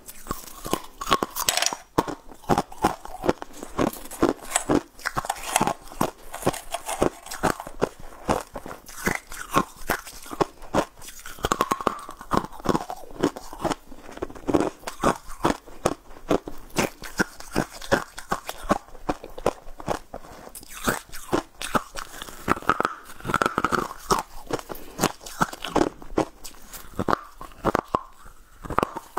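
Close-miked biting and chewing of sugar-coated, mermaid-tail-shaped candies: an irregular run of sharp crunches throughout.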